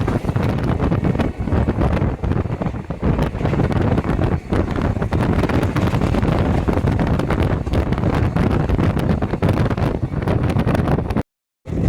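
Inside an ICF sleeper coach of a running train: a steady rumble with rapid clatter from the wheels on the track, and wind buffeting the microphone. The sound cuts out completely for a moment near the end.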